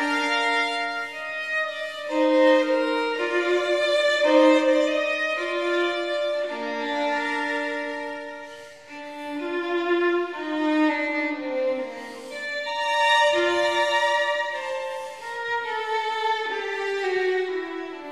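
Background music: a solo violin playing a slow melody, one note after another with occasional slides between pitches.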